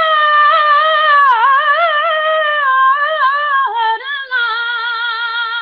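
A boy singing a naat unaccompanied, drawing out the end of a line in long, ornamented held notes whose pitch wavers and slowly falls. There is a short break a little after halfway, then a steadier, lower held note.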